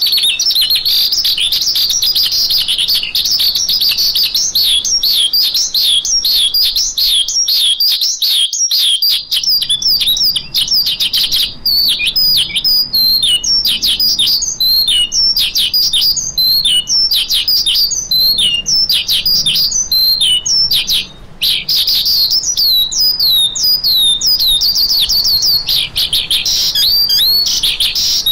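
A lark, the branjangan (Horsfield's bush lark), singing a rapid, continuous stream of high chirps and down-slurred notes, as a recording played to call larks. The song breaks off briefly about eight seconds in and dips again around twenty seconds in.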